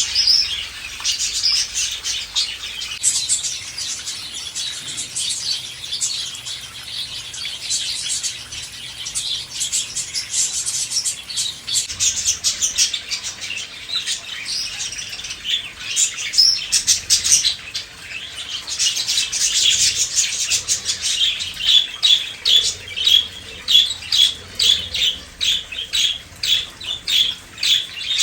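A group of small birds chirping busily without pause. In the second half the calls become a fast, regular run of repeated chirps.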